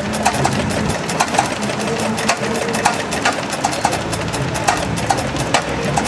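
Old stationary engine running with a rapid clatter of ticks and irregularly spaced louder knocks. It is not running right: it has been giving trouble and still needs tuning in.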